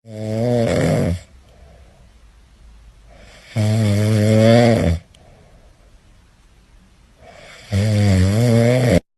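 A person snoring: three loud, low buzzing snores about four seconds apart, each lasting a little over a second and stopping sharply, with faint breathing between.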